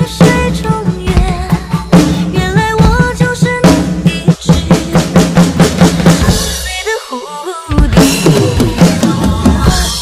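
Drum kit played along to a pop backing track's instrumental break: kick, snare and cymbal strikes under a melody with sliding notes. Around seven seconds the low end drops out briefly, then the full beat comes back in at about eight seconds.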